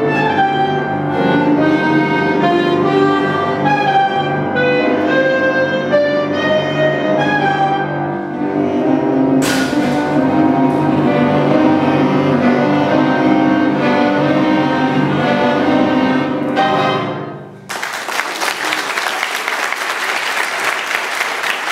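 Clarinet ensemble playing sustained chords through the closing bars of a piece, ending about four seconds before the end. Audience applause breaks out straight after and continues.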